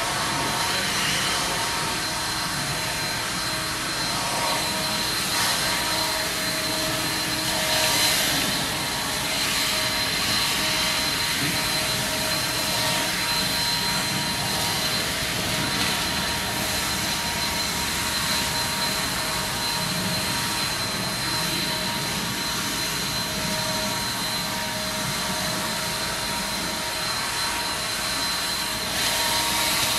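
Handheld leaf blower running steadily, with a high, even whine over a rushing blast of air, as it blows dry leaves across a yard.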